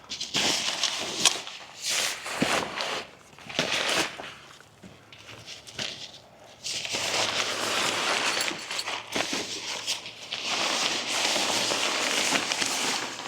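Nylon shower-tent fabric rustling and crinkling as it is handled and opened, in irregular crackly bursts for the first few seconds, then two longer stretches of steady rustling.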